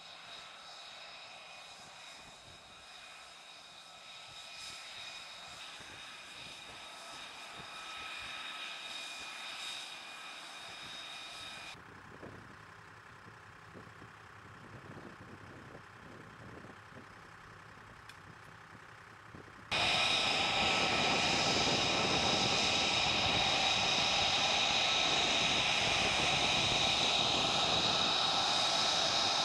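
F-35B jet fighter's turbofan engine running with a high steady whine over a rushing noise, growing louder at first, then dropping to a quieter run at an abrupt change near the middle. About two-thirds of the way in it jumps suddenly to a much louder whine and rush.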